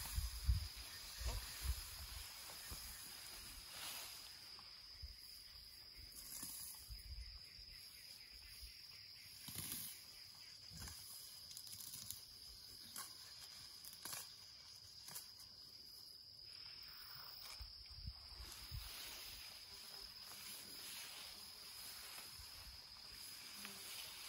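A steady, high insect trill, with scattered rustles and soft snaps of long grass as a sheep and a baby elephant graze.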